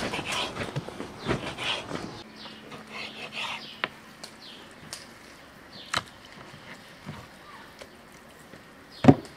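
Kitchen knife cutting lamb tail fat on a wooden cutting board, with scattered taps of the blade against the board and one sharp knock near the end.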